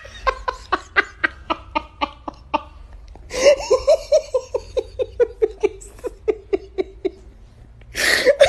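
Hearty laughter after a joke's punchline, in two long runs of rapid, rhythmic ha-ha pulses with a short break about three seconds in; the second run slowly sinks in pitch.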